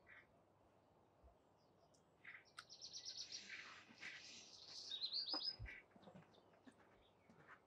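A small songbird singing a single phrase of rapid, high repeated notes that ends in a quick trill, lasting about three seconds and starting a couple of seconds in.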